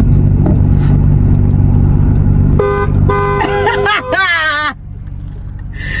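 Car engine running with a steady low rumble, then a car horn blares about two and a half seconds in and is held for over a second, while a person cries out over it.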